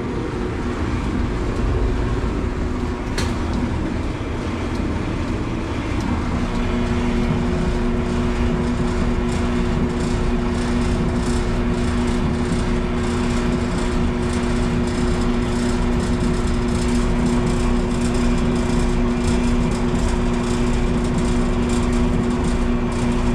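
Samsung electric clothes dryer running on high heat, its motor turning the drum and blower with a steady noise. A single click comes about three seconds in, and a steady hum joins about six to seven seconds in.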